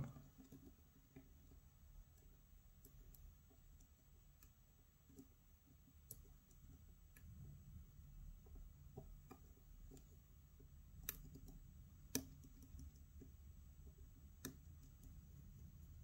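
Faint, scattered clicks of a steel hook pick working the pins of a pin-tumbler challenge-lock cylinder held under tension, with a few sharper clicks in the second half.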